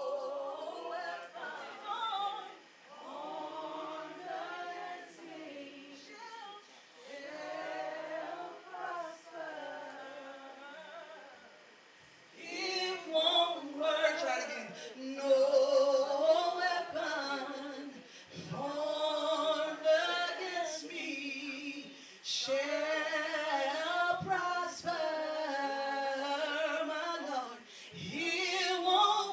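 A woman singing a gospel song into a microphone without instruments, in long held, wavering phrases separated by short pauses. It gets louder and fuller from about twelve seconds in.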